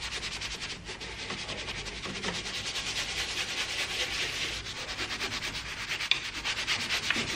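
A small detailing brush, its bristles cut short to make it stiffer, scrubbing quickly back and forth over a car's upper interior door panel. The result is a steady run of fast, even scratchy strokes.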